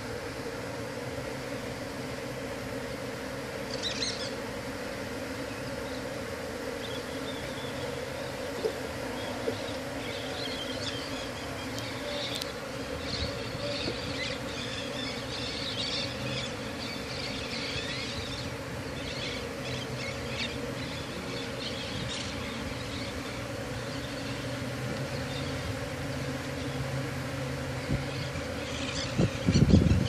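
Honeybees from a colony disturbed by a cut-out, buzzing in a steady hum. A few loud thumps near the end.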